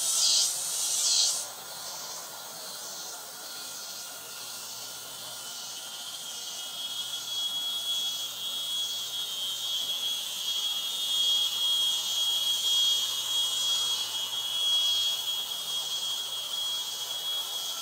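Steady, high-pitched chirring of insects, growing stronger about six seconds in, with a few short high sounds in the first second or so.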